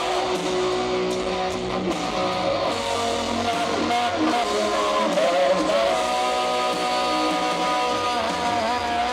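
Live rock lead on a double-neck electric guitar through a stadium PA: sustained bent notes with vibrato, then a long held note from about six seconds in, over the band's backing.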